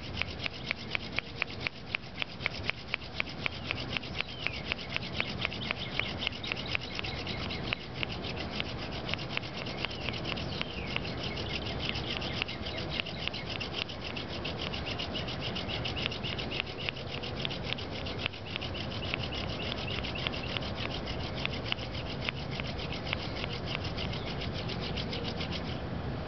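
Sotol spindle spun back and forth between the palms in a sotol hearth board, a floating hand drill for friction fire: steady wood-on-wood rubbing with a high squeak and regular ticks about two or three a second, getting denser and steadier after about eight seconds.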